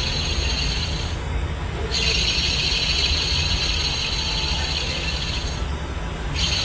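Suzuki K6A turbo three-cylinder engine running with a high, rasping whir from its belt tensioner bearing, the sign of a worn tensioner bearing. The high whir cuts out briefly twice.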